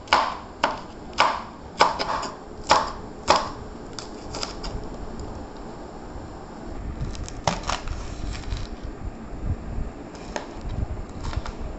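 Kitchen knife chopping green chillies on a wooden chopping board: sharp knocks of the blade on the board, about two a second for the first three and a half seconds, then fewer, softer taps.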